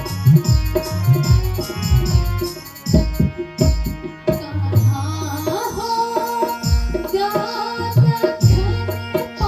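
Indian song with a steady hand-drum beat; a singing voice comes in about halfway through.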